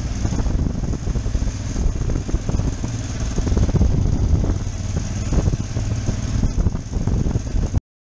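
Motorcycle ridden slowly, recorded from the rider's helmet camera: the engine running under a heavy wind rumble on the microphone. The sound cuts off abruptly near the end.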